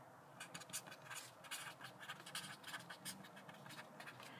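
Pen writing on a sheet of paper: faint, quick scratchy strokes of the tip across the page, one after another, stopping just before the end.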